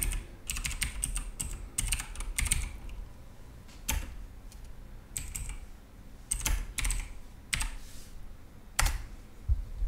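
Typing on a computer keyboard: a quick run of keystrokes in the first few seconds, then a handful of single, separate clicks.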